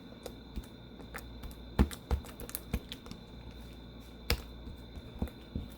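Slime being worked by hand close to the microphone, giving a scattered series of sharp clicks and pops at irregular intervals, the loudest about two seconds in and again past four seconds.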